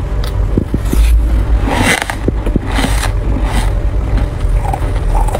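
Loose freezer frost crunching: a few light clicks, then several noisy scraping strokes about a second apart, over a steady low rumble.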